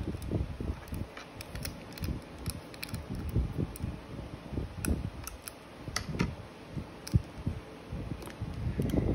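Irregular small clicks and taps of fingers and a small blue part working inside an opened iPhone 6 during a battery replacement, over uneven low rumbling handling noise.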